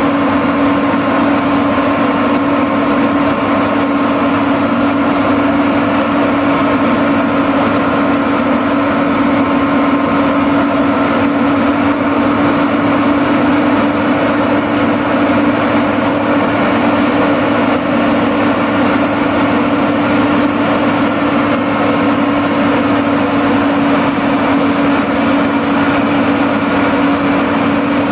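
Pulling tractor's engine running flat out at a steady, unchanging pitch, loud and continuous with no let-up.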